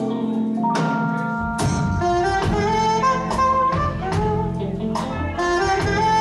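Live soul-funk band: a saxophone plays a melody of held notes over electric guitar and drum kit, with the bass guitar coming in about a second and a half in.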